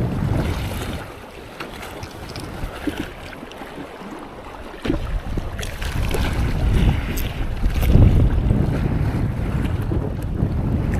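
Strong cold wind buffeting the microphone, with sea surf behind it. The gusts ease for a couple of seconds, then return hard about halfway through.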